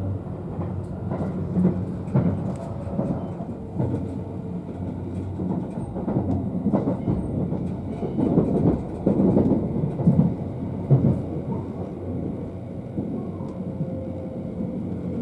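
JR West 271 series limited express train heard from inside the car as it runs into a station: a steady low rumble of wheels on the rails, with irregular clicks as it passes over the track, louder for a few seconds in the middle.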